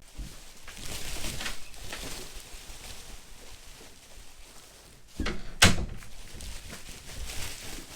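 Scattered rustling and knocking, with one sharp, loud thump about five and a half seconds in.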